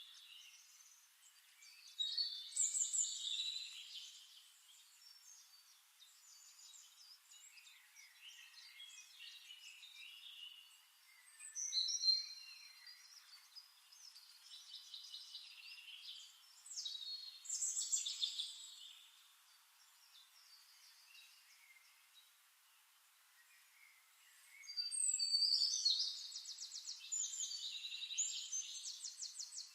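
Small birds chirping and twittering in high-pitched bursts every few seconds, with a long rapid trill near the end.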